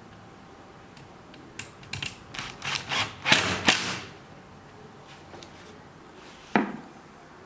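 A cordless drill driving screws in short, clattering bursts into the back panel of a walnut mirror frame. The bursts are loudest about three seconds in. Then comes a single knock as the heavy frame is moved on the bench.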